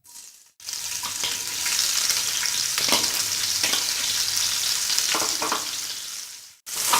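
Chopped capsicum sizzling in hot refined oil in a kadhai, with a spatula stirring and knocking against the pan several times.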